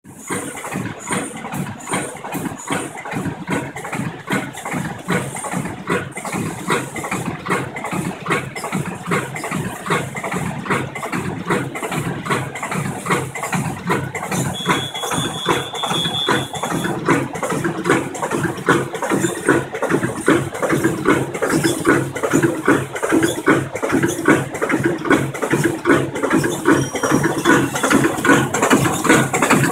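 Automatic soft loop and patch handle plastic bag making machine running, with a steady, evenly repeating mechanical clatter from its strokes. It grows somewhat louder in the second half, and a brief high steady tone sounds about halfway through.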